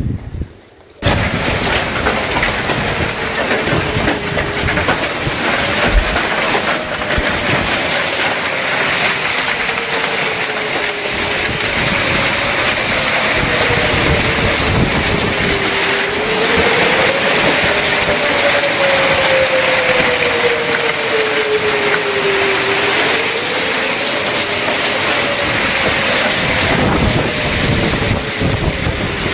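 Heavy hail and rain pounding down, starting suddenly about a second in, with a tornado warning siren wailing underneath, its pitch slowly rising and falling.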